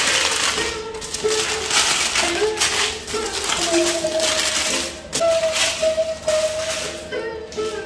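Background instrumental music: a melody moving in held notes over a rattling, shaker-like beat.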